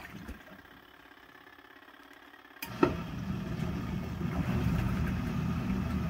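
Folding portable washing machine in its wash cycle: faint for the first two and a half seconds, then a sharp click and its motor starts again with a steady low hum.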